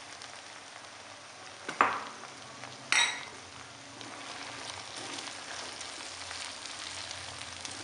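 Chicken, peas and vegetables sizzling and bubbling in a frothy liquid in a non-stick pan, stirred with a silicone spatula, the liquid cooking down. Two sharp knocks come about two and three seconds in, the second with a short ringing clink.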